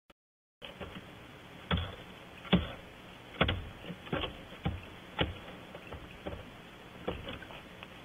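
A series of sharp, irregularly spaced taps, about eight in all, over a steady hiss.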